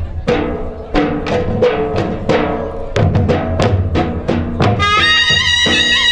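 Loud ras folk-dance music: pitched drum strokes at an even beat of about three a second. About five seconds in, a sustained high melody line enters.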